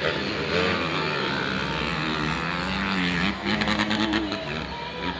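Motocross dirt bike engines revving on the track, their pitch rising and falling as the riders work the throttle through the corners.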